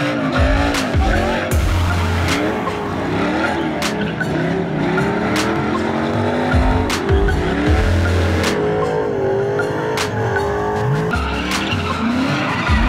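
Pickup truck doing a burnout: the engine revs up and down while the rear tyres spin and squeal on the asphalt. Music with a steady beat plays over it.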